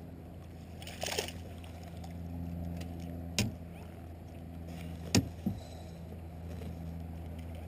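A steady low motor hum, with a short splashy rush about a second in and three sharp knocks later on.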